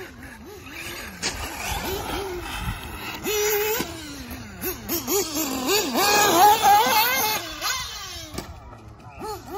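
Electric RC cars running on a dirt track, the motors whining as their pitch sweeps rapidly up and down with the throttle. The whine is loudest and highest about six seconds in.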